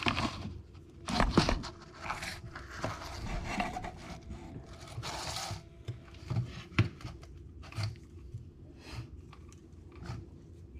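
Close-up handling of fishing tackle: irregular scrapes, rubs and crinkles, with a few sharp clicks, as shock-leader line, hooks and rubber muppet lures are worked by hand while tying a rig. The sharpest clicks come about a second in.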